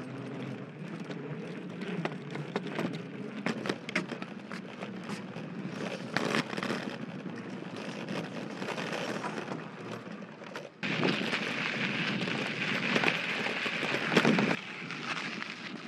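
Child's bicycle rolling over a wooden plank deck, its knobby tyres knocking across the board joints with constant rattling and clicking. About eleven seconds in it rolls onto a rough granular surface and the sound turns to a louder, steady gritty hiss, which drops away near the end.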